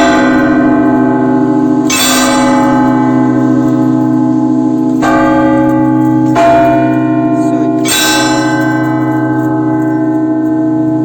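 Russian Orthodox church bells ringing. Clusters of bells are struck together about every two to three seconds, four times, over the lingering hum of the larger bells.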